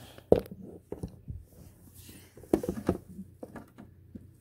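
Scattered knocks, taps and rustles of things being handled, the sharpest knock about a third of a second in and a quick run of taps about two and a half seconds in.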